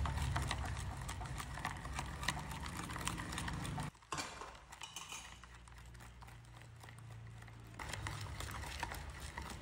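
Chopsticks stirring a thick egg yolk, sugar and cornstarch mixture in a ceramic bowl, clicking and tapping against the bowl in a quick, irregular rhythm. The sound cuts off abruptly about four seconds in and resumes more softly.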